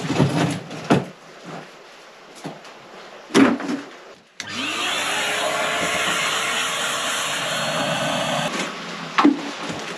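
A wet-and-dry vacuum cleaner switches on about halfway through, its motor whine rising as it spins up, runs steadily for about four seconds and switches off. Before it, a few knocks and clatters as chunks of broken limecrete are put in a bucket.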